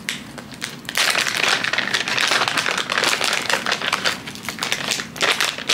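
Crinkling plastic wrapping of ginger candies being handled, a dense crackly rustle that starts about a second in.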